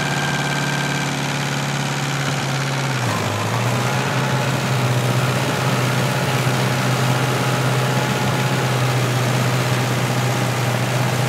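Small DC electric motors of a homemade miniature tractor running with a steady hum, the belt-driven model engine flywheel spinning; the hum drops slightly in pitch about three seconds in.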